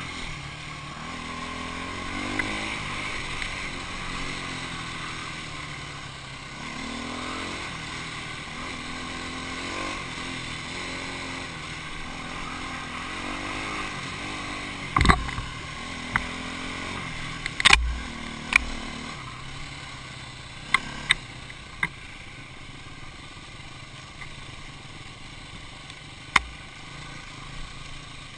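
Dirt bike engine riding a rough forest trail, its pitch rising and falling over and over as the throttle is worked. Several sharp knocks from about halfway on.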